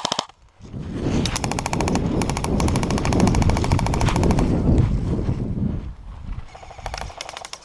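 Airsoft submachine gun firing on full auto: one long rattling burst of rapid, evenly spaced shots from about one second to five seconds in, then shorter bursts near the end, over a heavy low rumble.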